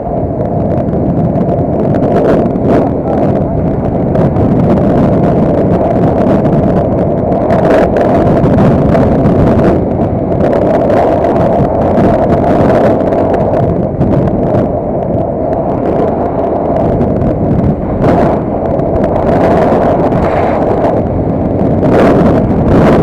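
Motorcycle riding along, its engine running under heavy wind noise on the microphone, with a few short knocks and clatters here and there.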